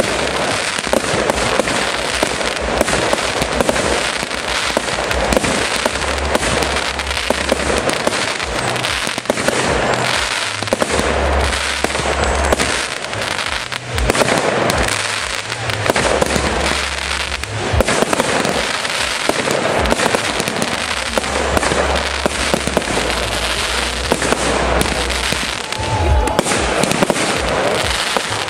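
Aerial fireworks going off in a continuous barrage: dense overlapping bangs and crackling with no real pause.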